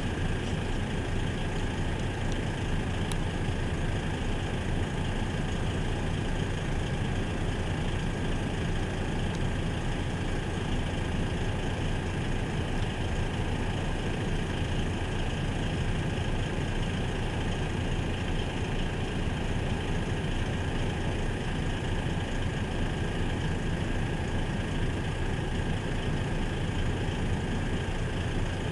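DAF XF 105 truck's diesel engine idling steadily.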